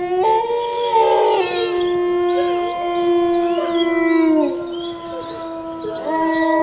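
A chorus of several long, overlapping howls from canines, each held at a steady pitch. Some fall away about four and a half seconds in, and new howls start about six seconds in.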